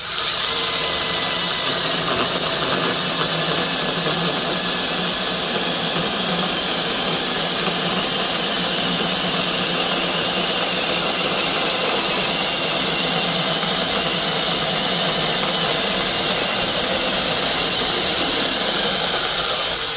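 Bei & Hong cordless brushless 6-inch mini chainsaw, 1/4-inch chain, running steadily under load as it cuts all the way through a log. It starts abruptly and stops abruptly as the cut goes through, with no overload cut-out along the way.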